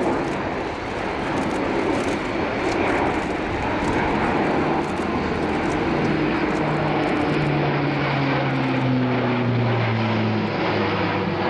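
Airbus A400M Atlas's four Europrop TP400-D6 turboprops and counter-rotating propellers running loud and steady in flight. A humming propeller tone falls in pitch over the second half.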